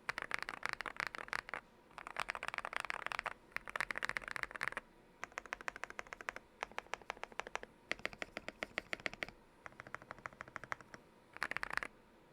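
Yunzii YZ98 mechanical keyboard with lubed Akko Lavender Purple Pro tactile switches and XDA keycaps, typed on fast in bursts: rapid runs of keystroke clacks lasting a second or two, broken by brief pauses, the last burst near the end.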